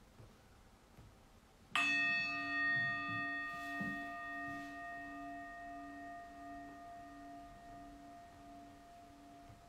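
A single struck bell or singing-bowl-type chime sounds about two seconds in and rings on with several steady overtones and a low hum that pulses about twice a second, slowly dying away. It marks the start of a timed two-minute hold.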